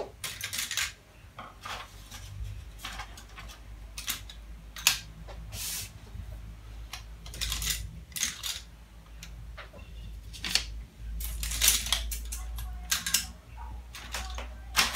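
Stiff kraft pattern paper rustling and crackling as layered sheets are handled and pressed flat, with scattered sharp clicks and taps from work on the paper. A steady low hum runs underneath.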